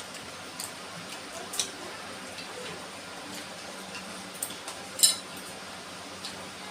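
Eating from a plate: a handful of short, light clinks and clicks of dishes. The loudest comes about five seconds in.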